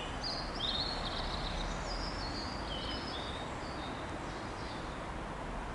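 Small birds chirping in short, quick trills over a steady low rumble of background noise.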